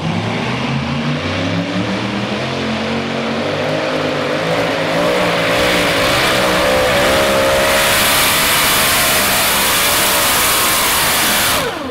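Multi-engine modified pulling tractor at full throttle on a pull. The engines climb in revs over the first few seconds, then hold high and loud. Near the end the sound drops off suddenly, its pitch falling away as the engines are backed off.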